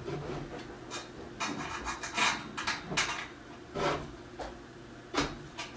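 Parts of a shelving rack being handled and fitted together: irregular light knocks and clicks over scraping and rubbing, with sharper knocks about 2, 3, 4 and 5 seconds in.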